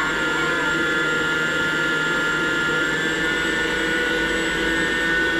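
Electric stand mixer motor running steadily, a constant hum with a high whine.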